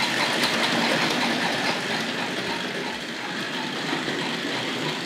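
Tri-ang Hornby 00-scale model steam locomotive and coaches running along the track: a steady motor whirr with the wheels clicking over rail joints and pointwork, the motor on half-wave controller power.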